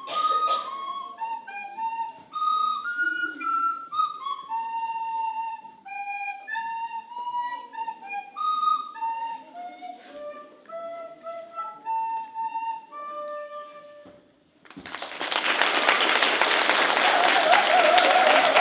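Two recorders playing a simple melody as a duet, the last note fading out about fourteen and a half seconds in; then the audience applauds.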